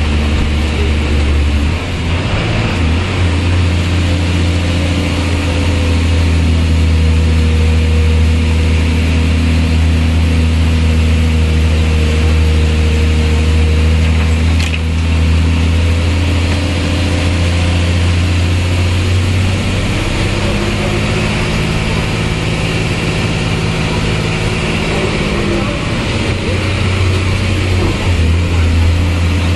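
Bus diesel engine heard from inside the cabin, running steadily as it climbs and winds along the road, its note shifting to a new pitch about two seconds in, again near twenty seconds and near the end. A single sharp click about halfway through.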